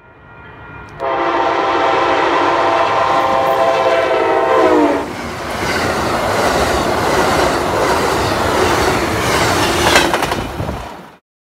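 Amtrak passenger train passing at speed, sounding a long multi-note horn chord from about a second in. The chord drops in pitch as the lead end goes by. The steady rush and clatter of the cars' wheels on the rails follows, peaking near the end before the sound cuts off abruptly.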